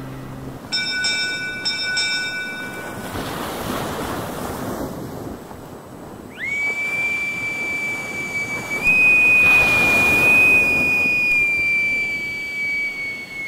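Sea sound effects: a few ringing strikes of a bell near the start, waves washing in, then a long high whistle held for about eight seconds that bends down and fades at the end.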